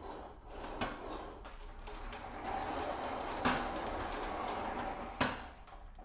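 Full-size 3D-printed R2-D2 replica driving on a concrete floor: its drive motors whine and its wheels roll, with a steady whine from about halfway in that stops just after five seconds. A few sharp knocks, the loudest about three and a half and five seconds in.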